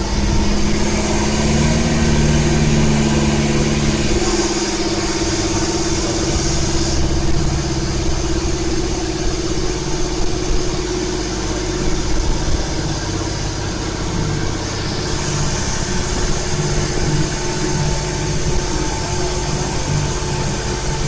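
Sightseeing boat's engine running steadily under way, a low hum with an even wash of noise over it.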